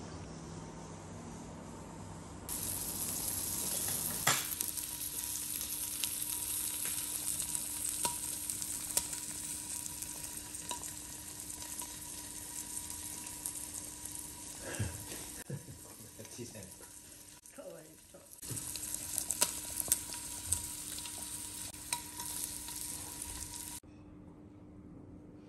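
Slices of beef sizzling on a hot plate over a small tabletop burner, a steady crackling hiss with occasional sharp pops. It starts a couple of seconds in, breaks off briefly in the middle, and stops near the end.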